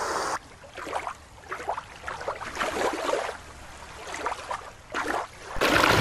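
Water sounds: a quieter stretch of faint, irregular splashing from an orca in a show pool, then a small creek waterfall rushing loudly from near the end.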